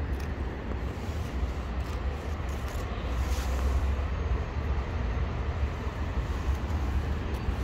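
Steady low rumble with a fainter hiss: outdoor background noise, with no distinct events standing out.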